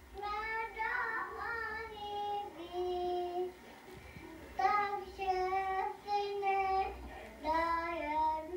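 A toddler singing a simple tune in three short phrases of held notes, played back from an old camcorder home video through a television's speakers.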